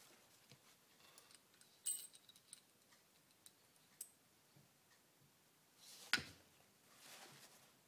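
Steel gearbox gears and shaft of an early Shovelhead four-speed transmission clinking as they are handled and fitted together: a ringing metal clink about two seconds in, a light tick near four seconds, and a louder clank about six seconds in.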